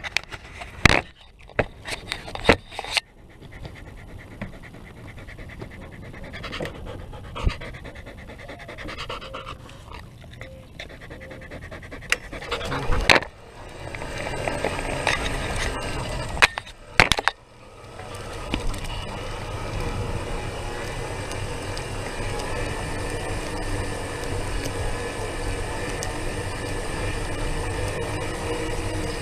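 Belgian Malinois panting close by, with several sharp knocks in the first half. From about eighteen seconds in, a steady rolling rumble takes over.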